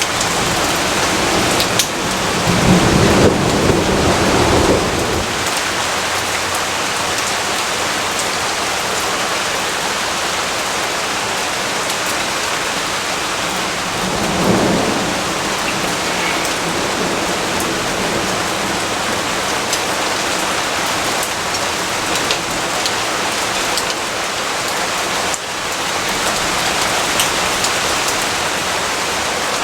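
Steady heavy rainfall with thunder: a rumble of thunder about two seconds in lasting a few seconds, and a shorter, weaker rumble about halfway through.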